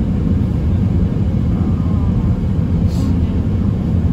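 Steady low rumble of a car driving on a snowy road, heard from inside the cabin: engine and tyre noise.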